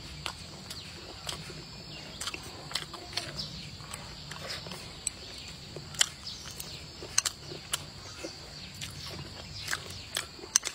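Close-up eating sounds: chewing and lip smacks, with chopsticks clicking against the bowl, heard as irregular sharp clicks several times a second.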